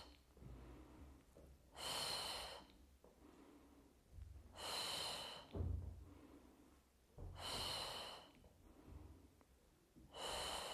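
A woman's paced breathing: four audible, hissing breaths, each under a second long and about two and a half seconds apart, kept in time with an exercise. A brief soft low thump comes about halfway through.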